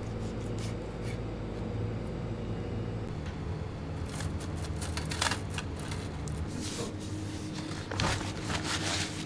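Thin stainless-steel skewers rattling and scraping as a hand pulls some from a steel tray, a run of bright clinks and scrapes over several seconds, then paper towel rustling near the end. A steady low hum sits underneath.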